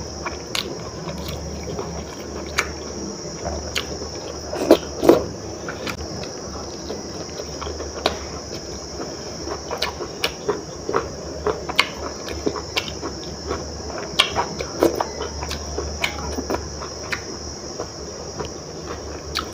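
Eating by hand from a stainless steel plate: fingers scraping up leftover khichdi, then chewing and wet lip smacks, heard as irregular small clicks and scrapes, with two louder smacks about five seconds in. A steady high-pitched hum runs behind.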